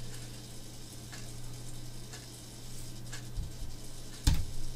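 Steady low electrical hum and hiss of a desk microphone, with a few faint clicks and one sharper click near the end, from a computer mouse being clicked.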